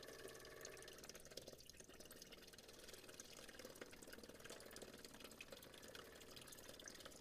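Faint trickle and splash of gasoline streaming from an open fuel line into a glass beaker, fed by the forklift's electric fuel pump, which has good unrestricted flow.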